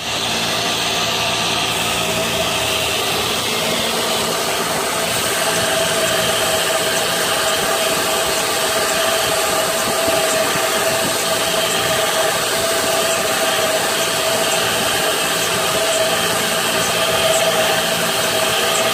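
A metal lathe spinning a Mazda 13B rotary engine's eccentric shaft while an abrasive belt runs against its journal, polishing it without taking metal off. The machine switches on at the start and keeps a steady motor hum and whine under a belt hiss.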